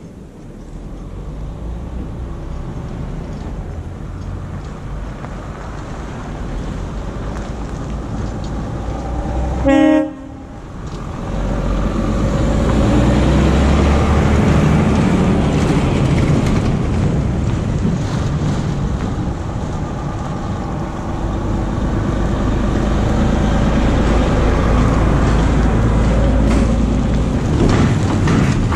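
Road vehicle driving, with a steady low engine drone. A short horn blast sounds about ten seconds in, and the drone is louder after it.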